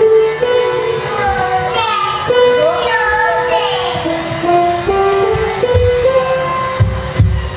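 Background music: a melody of held notes stepping up and down. About two seconds in, a high voice slides up and down over it for a second or two, and a few low thumps come near the end.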